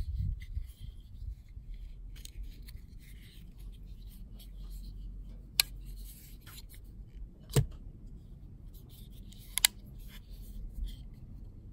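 Real Steel T101 Thor folding knife being flipped open and snapped shut in the hand, giving three sharp metallic clicks about two seconds apart, the middle one the loudest. Light rubbing of fingers on the carbon-fibre handle runs between the clicks.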